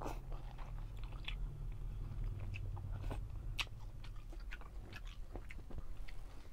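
A person chewing a mouthful of instant cup noodles with rice, close-miked: irregular small wet clicks and crunches of chewing over a low steady hum.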